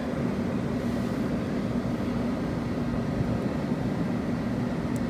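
NAVAC Master-series refrigerant recovery machine running steadily with a low hum, its compressor pulling refrigerant out of the system.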